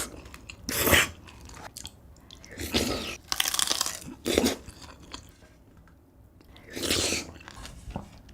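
Close-miked eating: bites and crunchy chewing in several short bursts with pauses between.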